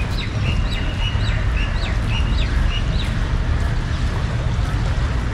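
Birds chirping in a quick run of short whistled notes and rising chirps that fade out about three seconds in, over a steady low rumble.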